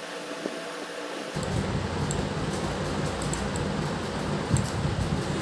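Steady fan-like room noise. About a second and a half in, a low rumble comes in suddenly and holds, with faint light clicks scattered over it.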